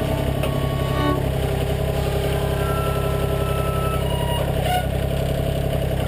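Engine of a front-end loader with log forks running steadily.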